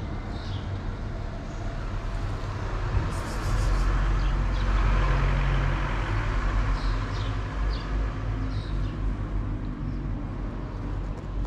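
Street traffic noise: a steady low rumble that swells as a vehicle passes, loudest about four to six seconds in.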